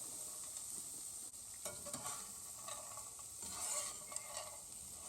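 Frozen peas and carrots sizzling in a hot HexClad non-stick frying pan, with a steady high hiss. From about a second and a half in, they are stirred and scraped around the pan with a turner spatula.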